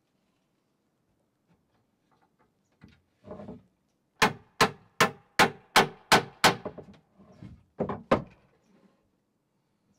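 Hammer driving hand-forged square nails into the hardwood ladder frame: a run of about seven quick, sharp ringing blows starting about four seconds in, then two more near the end, after a few soft knocks.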